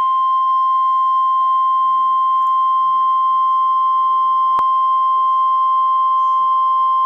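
NOAA Weather Radio's 1050 Hz warning alarm tone: one loud, steady, unbroken tone, the signal that a warning is about to be broadcast, here a tornado warning. A faint click comes about four and a half seconds in.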